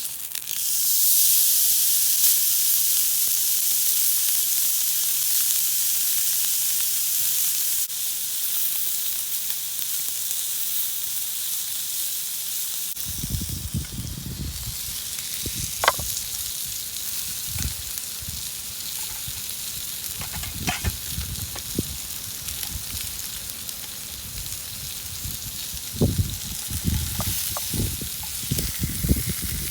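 Food sizzling in a frying pan, a loud steady hiss that eases off somewhat about halfway through. From then on, low rumbles and a few sharp clicks come in over it.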